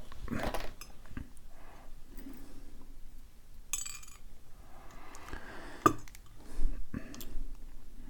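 Light metallic clinks, taps and scrapes as a solid steel padlock body and its small parts are handled and set down, with two sharp clicks near the end.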